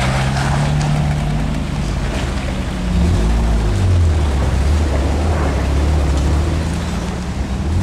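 Jeep Wrangler engine running at low speed on a rocky off-road trail. Its note drops about three seconds in, then holds lower and a little louder.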